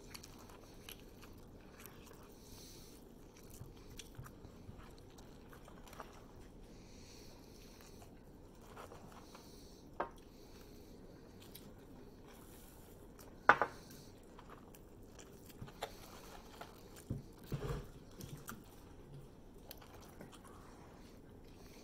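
A person eating a hamburger close to the microphone: faint chewing and biting with scattered short mouth clicks and small knocks. The loudest click comes just over halfway through, followed a few seconds later by a short cluster of low knocks.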